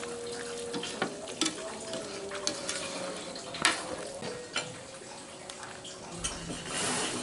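A wooden ladle stirring cassava leaves through coconut milk in an aluminium wok, with scattered knocks of the ladle against the pan, the loudest about three and a half seconds in. A short hiss near the end.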